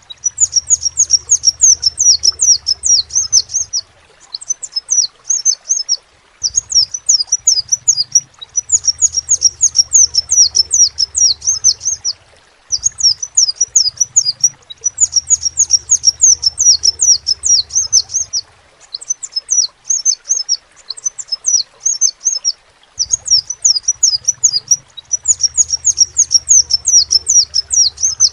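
Crimson sunbird (sepah raja) singing: rapid high-pitched chips and trills in phrases of a few seconds separated by short pauses, with a low hum under some of the phrases.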